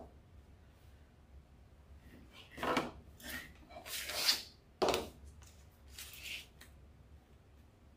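A handful of short rustles and knocks of things being handled and moved, over a faint steady low hum.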